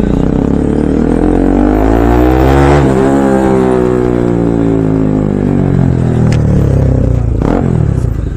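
Bajaj Pulsar NS200's single-cylinder engine heard from the saddle, revving up under acceleration for about three seconds, then falling steadily in pitch as the throttle closes, with a quicker drop near the end.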